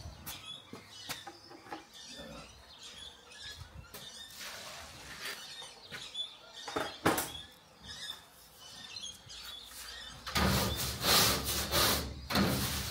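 A push broom sweeping across a trailer's metal deck in several swishing strokes, starting about ten seconds in. Before that, scattered light knocks and clicks.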